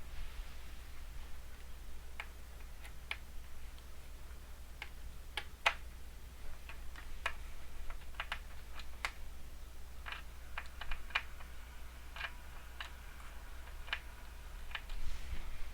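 Small screwdriver clicking lightly and irregularly against the screws and metal mounting of a laptop screen as the screws are driven back in.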